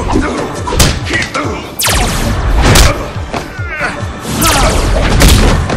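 Fight sound effects: about five hard punch-and-kick impact hits with whooshes, laid over driving background music. Short shouts come between the blows.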